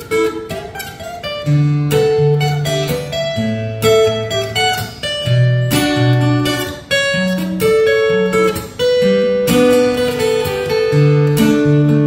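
Solo acoustic guitar played fingerstyle: plucked bass notes held under a picked melody and chords, one player alone.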